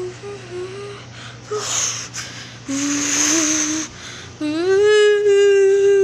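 A person humming a tune as a homemade imitation of a studio logo's music: short notes at first, then a long held note that slides up into place about halfway through. Two breathy hissing noises come in between.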